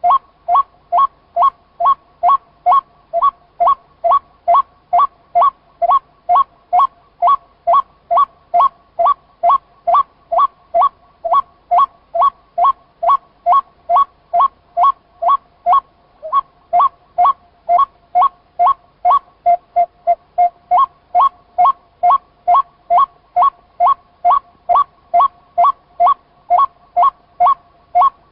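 White-breasted waterhen (chim cuốc) calling its monotonous 'kuk' note over and over, about two calls a second, very evenly spaced.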